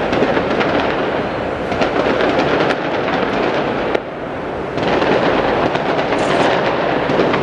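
Fireworks display going off: a dense, continuous rumble of bursts with many crackling pops. It dips suddenly about four seconds in and picks up again within a second.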